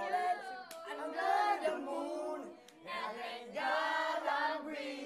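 A group of young men and women singing together, several voices holding long drawn-out notes, with a short break between phrases partway through.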